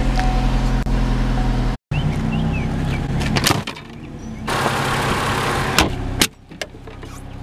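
An old Honda's engine idling steadily just after being jump-started from a dead battery. Near the middle it gives way to clicks and rustling clatter as gear is handled in a car trunk.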